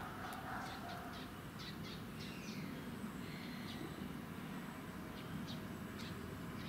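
Outdoor ambience with small birds chirping: many short, high chirps and a few brief calls over a steady background haze.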